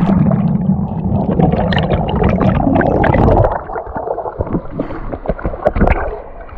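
Water splashing and gurgling as a swimmer goes into a rock pool: a loud, dense churning for the first three and a half seconds, then lighter scattered splashes and drips.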